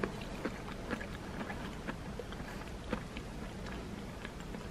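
Close-up sound of someone chewing soft stir-fried Korean zucchini (hobak-bokkeum): irregular wet clicks and smacks, the sharpest about half a second, one second and three seconds in.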